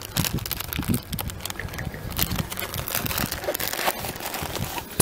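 Rustling, crackling handling noise from a handheld camera being carried while walking, with an uneven low rumble of buffeting on the microphone.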